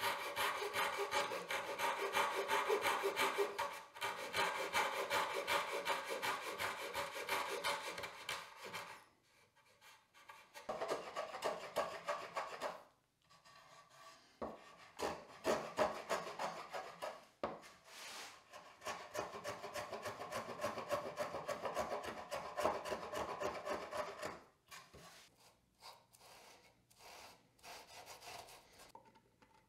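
A Japanese pull saw cutting a small piece of softwood with rapid, even strokes for about nine seconds. Then come short, separate hand-plane strokes, another long run of steady strokes, and faint cloth-on-wood rubbing near the end.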